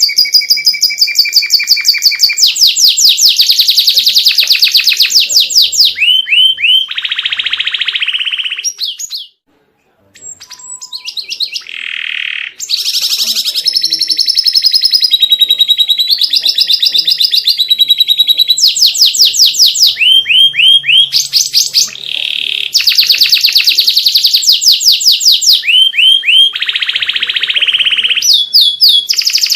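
Domestic canary singing a full, varied song: fast runs of repeated high notes and rolling trills, each phrase held for a few seconds before switching to another, with a brief pause about nine seconds in.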